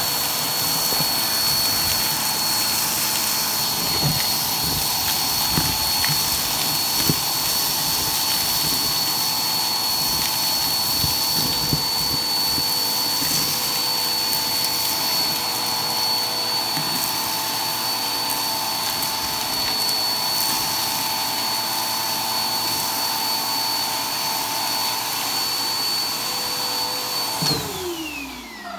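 Vacuum cleaner running with a steady high whine, sucking dirt and debris off carpet through its hose tool, with small crackles and ticks as bits go up the hose. Near the end the motor is switched off and winds down, its pitch falling.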